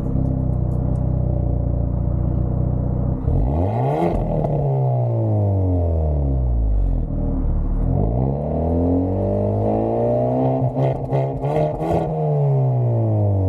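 Hyundai Elantra N's turbocharged 2.0-litre four-cylinder engine and exhaust: a steady idle, then a sharp rev about three seconds in that falls away slowly, and a second, longer rev a few seconds later that also falls back. A few pops sound at the first peak, and a run of pops and crackles from the exhaust comes as the second rev tops out and starts to drop.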